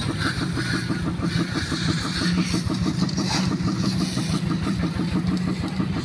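Pressure washer's motor-driven pump running steadily with an even rhythmic pulse, its water jet hissing onto a motorcycle.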